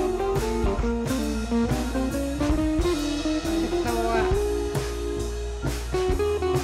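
Background music: guitar-led, blues-style music with a drum kit and a steady beat.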